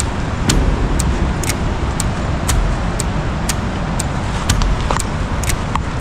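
Steady loud rush of a monsoon-swollen river and waterfall, with a heavy low rumble. Short sharp ticks come about twice a second over it.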